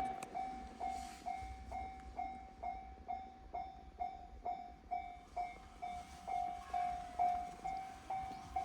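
Japanese railway level-crossing warning bell ringing, a single high ding repeated evenly about twice a second, each ding ringing out briefly.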